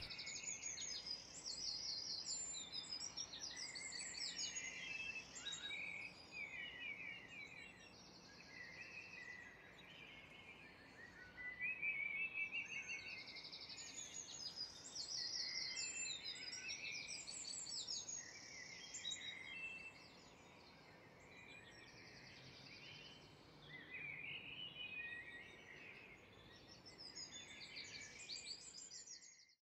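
Several songbirds singing at once, overlapping trills and chirps over a faint steady hiss, swelling and fading, then cutting off abruptly near the end.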